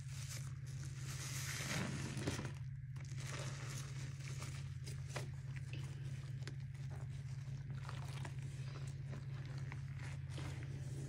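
Soapy kitchen sponges squeezed and rubbed in rubber-gloved hands in a sink of foamy cleaning solution: wet squelching with many small crackles, the fullest squeeze about two seconds in, over a steady low hum.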